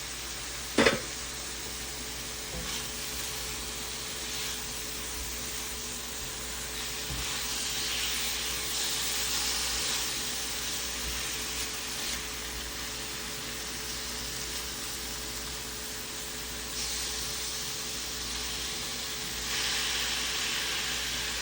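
Food frying in a hot skillet, a steady sizzle that swells louder twice, with a brief knock about a second in.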